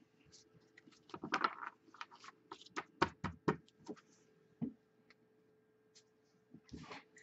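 Trading cards in plastic sleeves being handled and set down on a wooden table: a short rustle about a second in, then a run of sharp clicks and taps.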